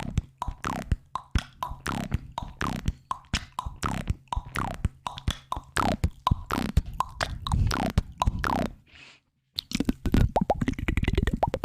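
ASMR mouth sounds close to the microphone: a rapid run of wet pops and tongue clicks, several a second, many dropping quickly in pitch. They stop briefly about nine seconds in, then a denser run of clicking and crackling follows.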